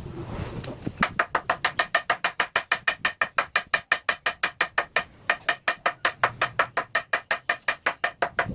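Wooden mallet tapping a carving chisel into wood: fast, even knocks about six a second, with a brief pause about five seconds in.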